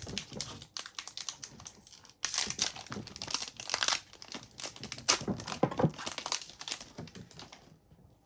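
Foil wrapper of an Upper Deck hockey card pack being torn open and crinkled by hand, rustling in irregular bursts that die away near the end.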